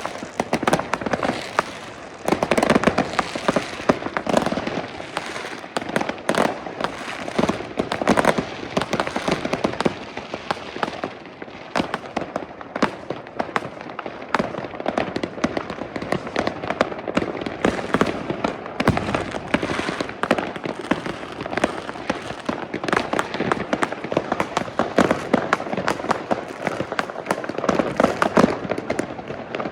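Many consumer fireworks and firecrackers going off at once all around: a dense, continuous crackle of bangs and pops, many a second, with louder reports standing out here and there.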